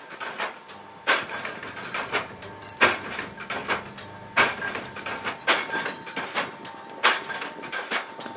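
A hand hammer strikes a steel chain link held in pliers on a steel block, closing the link: sharp metal clanks about once a second, each with a short ring. Lighter clinks of chain and tools fall between the blows.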